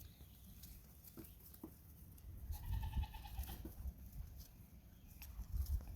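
A Nigerian Dwarf goat bleating once, a high, wavering call about a second long near the middle, over a low rumble.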